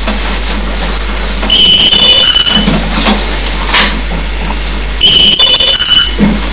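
Telephone ringing twice, an electronic ring of steady high tones about a second long each time, the rings some three and a half seconds apart.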